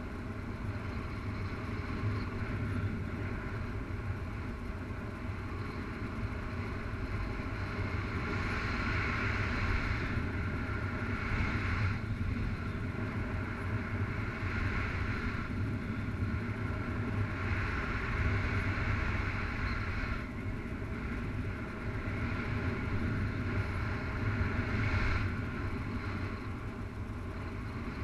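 Airflow buffeting the camera microphone of a paraglider pilot in flight: a steady low rumble with a hissing rush that swells and fades every few seconds.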